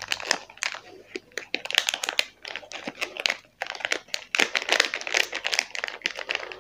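Plastic wrapping crinkling and crackling in irregular bursts as it is handled and folded by hand around a small circuit board.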